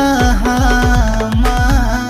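Background music from a Bhojpuri folk-pop song: a held, ornamented melody over a run of deep bass hits that slide down in pitch.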